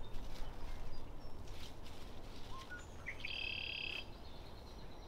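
Songbirds calling in the background: a few short faint whistled notes, then one buzzy trill lasting almost a second a little after three seconds in. Beneath them are a few faint rustles of rope and leaves and a steady low rumble.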